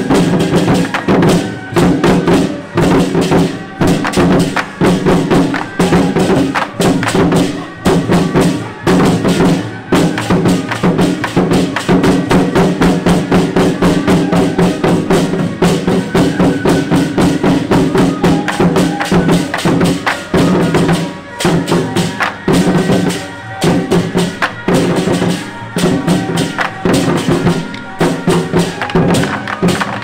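Drum troupe playing large Chinese barrel drums together with clashing hand cymbals, in a fast, driving rhythm of dense, even strikes.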